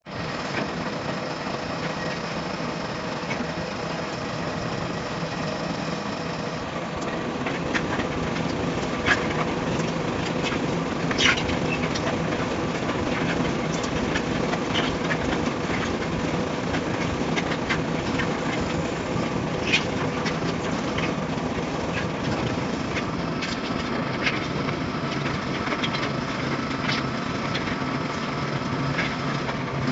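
Electric concrete pump and twin-shaft concrete mixer running: a steady mechanical hum and rumble with occasional sharp knocks and clatter.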